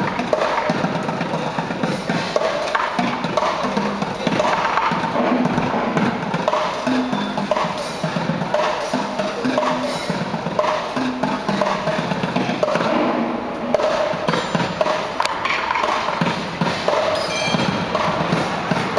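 Percussion music: drums playing a continuous rhythm.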